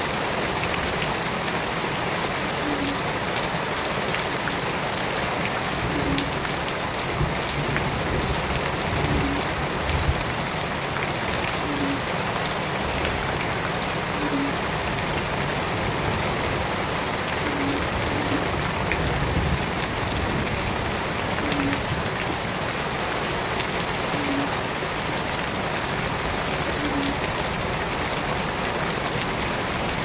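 Shallow water splashing and running over the ground in a steady, even wash.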